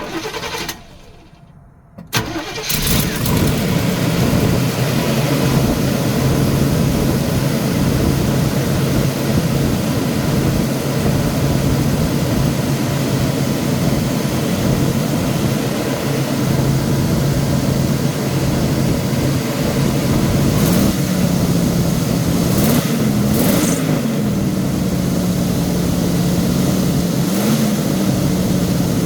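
Motorhome's gasoline engine starting on fresh oil: it catches about two seconds in and settles into a steady idle. The engine speed rises briefly three times near the end.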